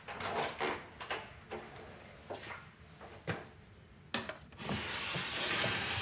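Footsteps and light knocks, then a sharp click about four seconds in, followed by a wooden cabinet drawer being slid open with a long, even rubbing noise near the end.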